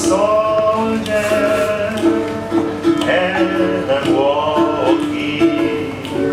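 Ukulele playing along with singing voices in a lively song, the sung notes sliding up and down in pitch.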